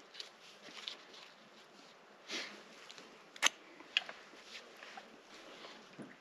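Aluminium beer can being picked up and handled: a few light clicks and knocks, the sharpest about three and a half seconds in, with a short rustle just before.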